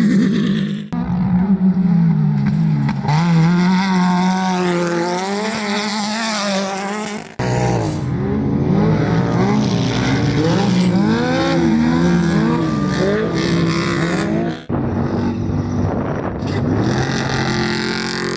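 Off-road race vehicle engines revving hard, the pitch climbing and dropping again and again as the throttle is worked, in several short clips cut together.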